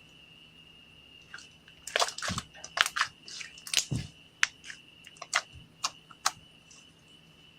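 Clear slime being squished and worked by hand, making wet clicks and pops. A dense cluster comes about two seconds in, then single pops follow at intervals.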